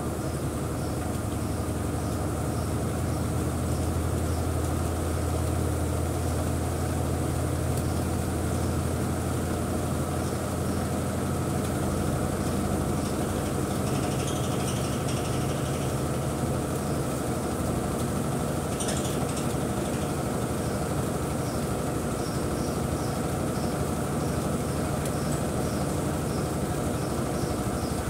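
Electrolux Turbo 15 kg top-loading washing machine on its spin cycle, the basket spinning at speed with a steady motor hum and whir. The low hum shifts in pitch about twelve seconds in.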